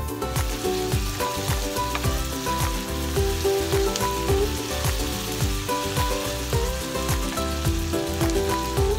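Chopped onion and tomato sizzling in a nonstick frying pan as they are sautéed and stirred with a wooden spoon. Background music with a steady beat plays throughout.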